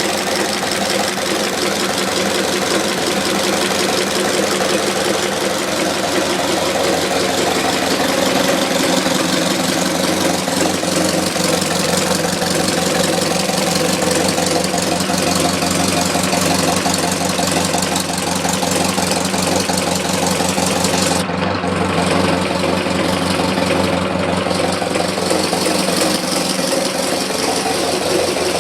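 Car engine idling steadily with a light, regular knock that its owner is trying to track down around the engine.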